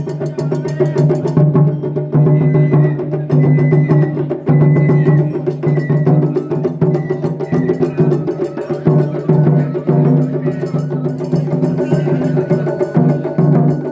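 Japanese festival hayashi from a festival float: taiko drums beaten in a fast, steady rhythm, with sustained tones and short high notes recurring about once a second over the drumming.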